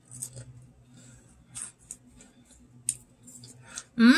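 A person chewing a graham cracker dipped in chocolate peanut butter with mouth closed, giving a few short, faint crunches. Near the end a loud hummed vocal sound, rising then falling in pitch, breaks in.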